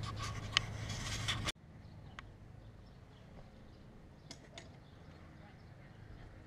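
Hands handling an action camera, with knocks and rubbing on the microphone over a steady hum, cutting off abruptly about a second and a half in. Then faint, quiet riding noise with a few light ticks as a bicycle rolls along a brick sidewalk.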